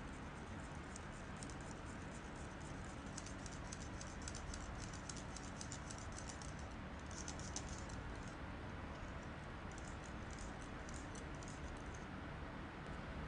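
Wire balloon whisk stirring whipping cream into cheesecake batter in a glass bowl: a fast, uneven run of light clicks as the wires tap the glass, stopping near the end, over a faint steady hiss.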